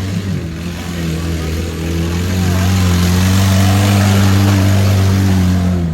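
Off-road race vehicle's engine running at a steady pitch, growing louder about two seconds in and easing near the end.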